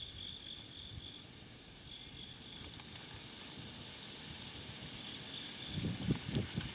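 Quiet lakeside ambience: a steady hiss with a faint, high insect drone that comes and goes, and a few low bumps near the end.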